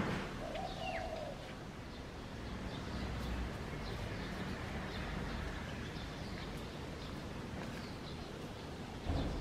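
Outdoor garden ambience with a steady background hum and scattered faint bird chirps. A dove gives one short cooing call about a second in. A brief thump comes near the end.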